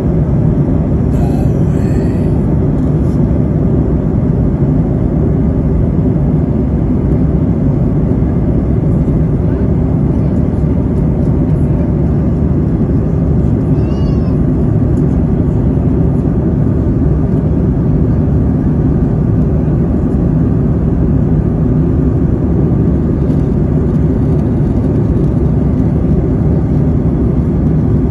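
Steady roar of an airliner cabin in flight: jet engine and airflow noise, deep and unchanging, with a brief high chirp about halfway through.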